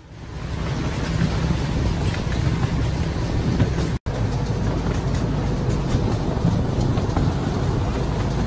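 Miniature park train running, heard from a passenger car: a steady rumble of the train in motion, with a brief cut-out about four seconds in.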